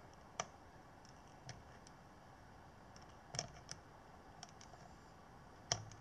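Light, sharp clicks of steel multimeter probe tips tapping and scraping on the legs of an RS401 bridge rectifier during a diode check, about six of them scattered, the loudest near the end, over faint hiss.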